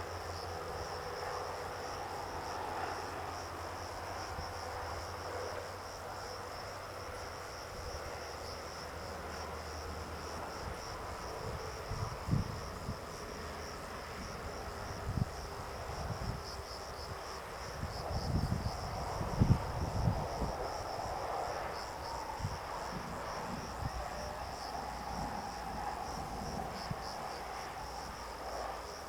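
Insects chirring steadily in a high, slightly pulsing drone. A few low thuds come through in the middle stretch.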